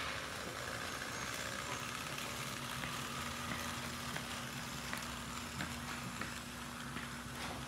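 Mighty Liner floor tape applicator rolling steadily across a concrete floor, unspooling and pressing down floor marking tape, over a steady low hum.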